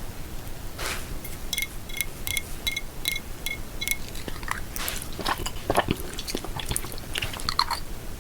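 Close-miked crunchy biting and chewing of food. Early on there is a run of about eight short, evenly spaced high tones, and after that come crackly crunches and clicks.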